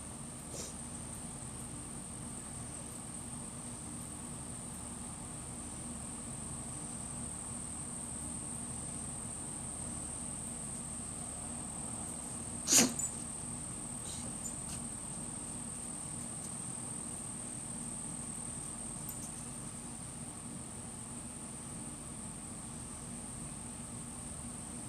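A dog, the Shih Tzu, gives one short sharp sneeze about halfway through, with a fainter snort just after, over a steady high-pitched background drone and low hum.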